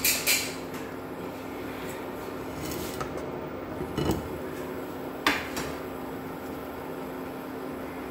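Induction cooktop running with a steady hum. A few sharp clacks come from a nonstick frying pan and a spatula being handled on its glass top: two near the start, one about four seconds in and one just past five seconds.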